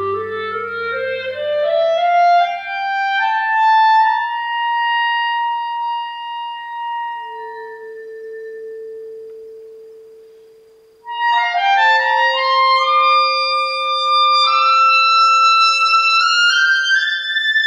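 Clarinet-led chamber ensemble playing contemporary classical music: rising stepped lines that thin to a held note and fade almost away, then a sudden loud entry about eleven seconds in with several rising lines at once.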